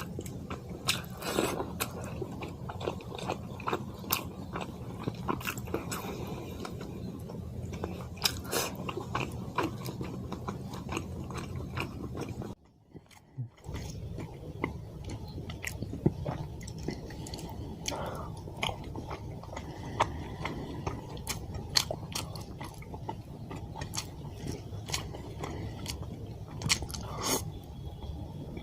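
A person chewing and biting mouthfuls of fish curry and rice, with many small sharp mouth clicks over a steady low hum. The sound cuts out briefly a little before halfway through.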